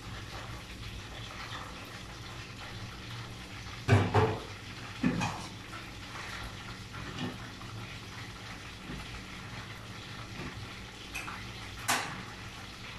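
Chicken frying in oil in a pan on a gas stove, a steady sizzle. Metal cookware clanks a few times about four to five seconds in and once near the end.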